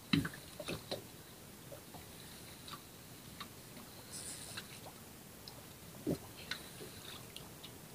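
Spinning reel and rod worked while jigging a metal jig: faint, scattered ticks and clicks, with a couple of short soft knocks near the start and about six seconds in.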